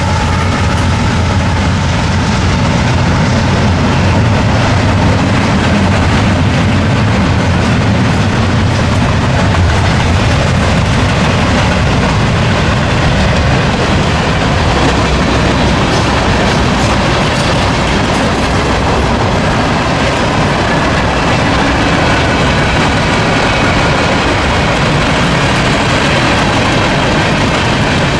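CSX freight train's cars rolling past: a loud, steady noise of steel wheels on rail, with a few faint clicks partway through.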